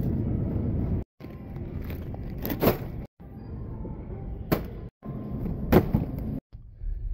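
Wire shopping cart rumbling and rattling as it rolls, with a few sharp knocks of packages set down in it, in short clips cut off abruptly one after another.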